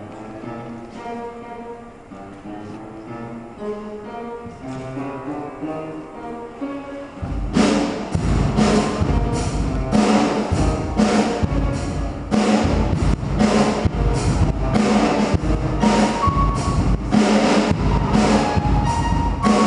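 Live upright piano playing alone, then a drum kit with cymbals comes in about seven seconds in, much louder, keeping a steady beat as piano and drums play together.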